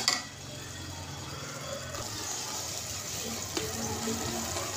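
Pot of pulao rice simmering on a gas burner, a steady hiss and bubbling as the last of the water cooks off. A metal spatula clicks against the aluminium pot once at the very start.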